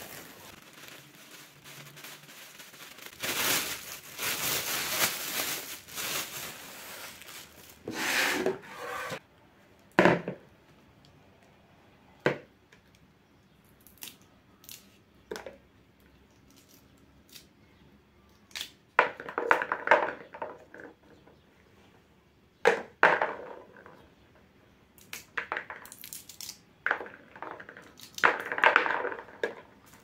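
A plastic bag full of fresh pea pods rustling and crinkling as it is handled, then pea pods being split open by hand, with light clicks of peas dropping into a plastic bowl and more bursts of rustling as pods are taken from the bag.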